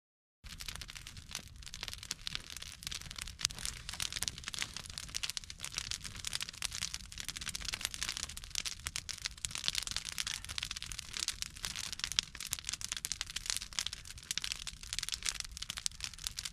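Dense, continuous crackling and rustling made of many small clicks over a low rumble, starting abruptly about half a second in.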